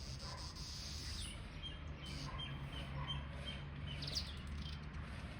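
Songbirds singing. A high held whistle comes first, then a run of short repeated chirps about two a second, and a quick falling trill near the end, over a steady low hum.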